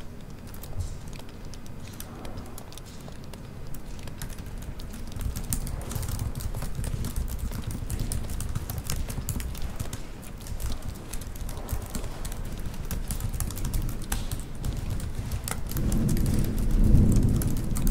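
Computer keyboard typing: quick, irregular key clicks. Under it, a low rumble grows louder near the end.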